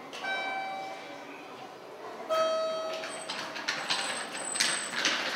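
Two-note descending electronic chime, each note ringing about a second, the second lower than the first, as sounded by a terminal public-address system; then about two seconds of clattering, hissing noise.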